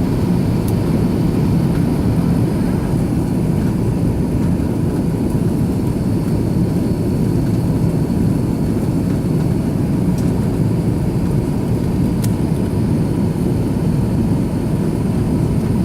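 Airbus A330-300 airliner heard from inside the passenger cabin: a steady, deep roar of jet engines and airflow.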